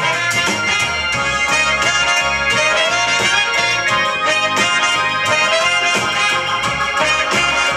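Live blues band playing an instrumental passage with trumpet and saxophone over electric guitar and drums, without vocals.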